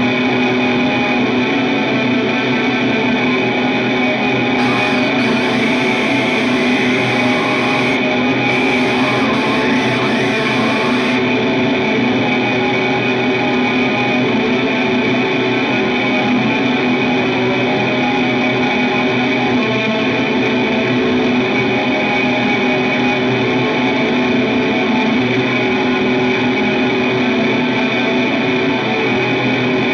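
Music: a dense, steady drone of distorted, effects-laden guitar with echo.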